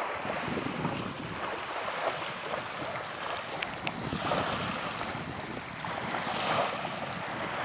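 Small waves lapping on a sandy shore, with wind rumbling on the microphone; the wash swells about four seconds in and again near the end.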